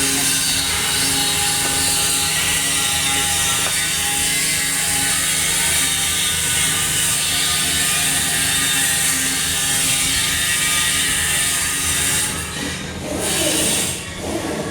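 Steady mechanical running noise with a constant hum, which drops and turns rougher and uneven about twelve seconds in.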